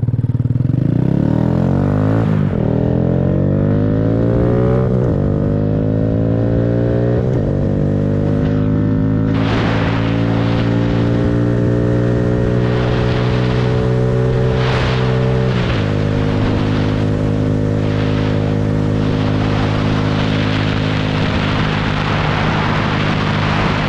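2022 Honda Grom's single-cylinder engine running through an aftermarket exhaust with the baffle removed, accelerating up through the gears. Its pitch rises and drops back at upshifts about 2, 5 and 7 seconds in, holds steady while cruising, then drops again with another upshift about 16 seconds in.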